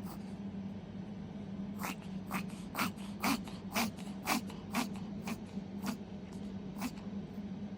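Toy poodle puppy reverse sneezing: a run of about ten short, sharp, noisy breaths in, roughly two a second, starting about two seconds in and stopping near the end.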